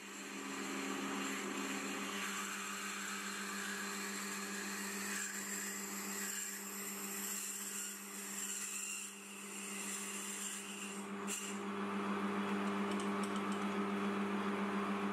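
Gear-head metal lathe running steadily while a 9.5 mm twist drill bores a recess into spinning solid-brass bar stock: a steady hum with overtones and a hiss above it.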